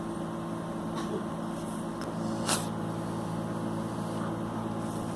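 A steady low mechanical hum made of several held tones. About halfway through there is a single short hissing noise.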